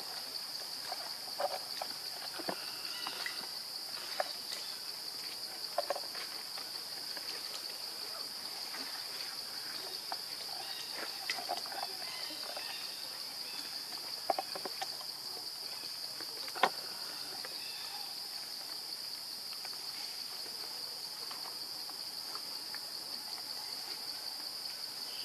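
Steady high insect chorus, a continuous buzz. Over it come scattered short clicks and rustles; the sharpest click is about two-thirds of the way through.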